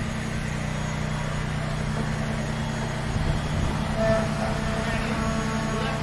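Concrete pump truck's diesel engine running steadily at a constant speed during pumping.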